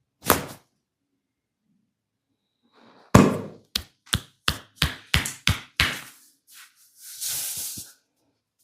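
Sharp percussive massage strikes on the body: a single knock, then after a pause a quick run of about eight strikes, roughly three a second, the first the loudest. A brief hiss follows near the end.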